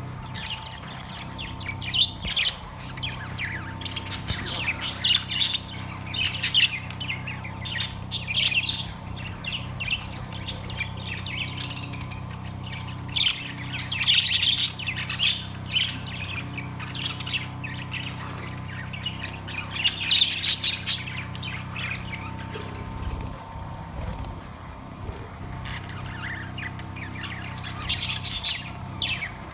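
Budgerigars chirping and squawking in a cage, in repeated bursts of rapid high chatter over a steady low hum.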